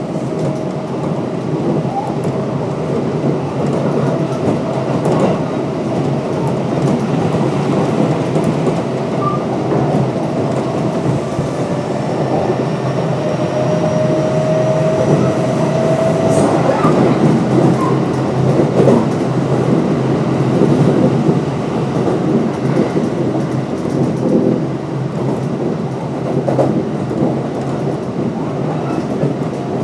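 Kintetsu 1026 series electric train (Hitachi GTO-VVVF) running at speed between stations: a steady rumble of wheels on rail, with a thin whine that grows louder about halfway through.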